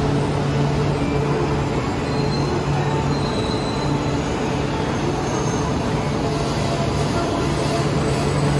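E4 series Max double-decker Shinkansen moving along the platform: steady rolling and running noise with a continuous low hum.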